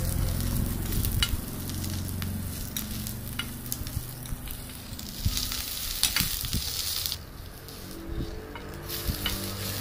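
Sliced onions, garlic and curry leaves sizzling in hot oil while a metal spoon stirs them, with scattered clicks and scrapes of the spoon on the pot. The sizzle drops away briefly about seven seconds in, then returns.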